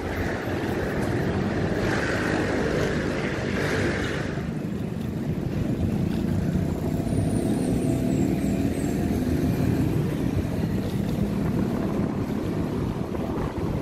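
Metro Manila street traffic heard from a moving bicycle: a steady rush of vehicle engines and tyres. An engine's hum swells in the middle.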